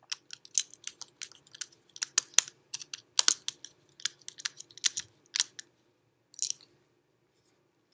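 Screwdriver tightening a brass terminal screw on a duplex electrical receptacle: a run of irregular sharp clicks and scrapes of the blade working in the screw head.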